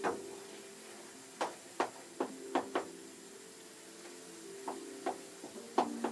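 About a dozen sharp, irregular knocks of a kitchen utensil against cookware, over soft background music.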